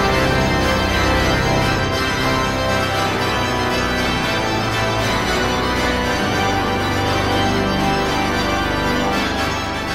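Background organ music: slow, sustained chords that change every second or two.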